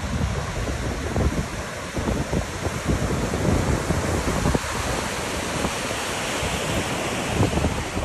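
Big storm surf breaking and washing in foam below a pier, a steady rushing wash, with gusts of wind buffeting the microphone in irregular low thuds.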